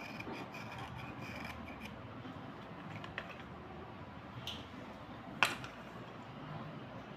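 Wet slate pencils being scrubbed by hand, a gritty scraping over the first couple of seconds, then rubbing and stirring of the pencils in water in a glass bowl. A sharp clink of pencil on glass comes about five seconds in.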